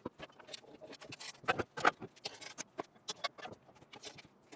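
Irregular light clicks, taps and scrapes of a tube door and its hinges being handled and fitted to a Jeep Wrangler, with a couple of louder knocks about a second and a half in.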